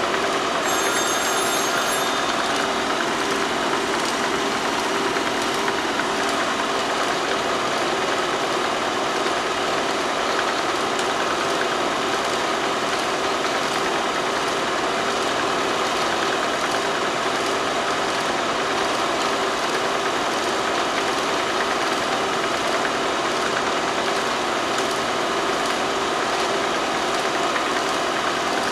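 Steady, unchanging mechanical hum and hiss with no distinct events. It does not come from the filmed scene, which is silent footage.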